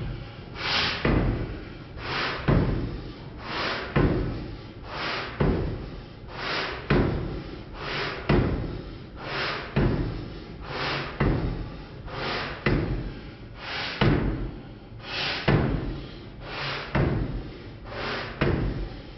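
Pilkington power hammer striking in a steady rhythm, a sharp blow about every 0.7 seconds, some close together in pairs.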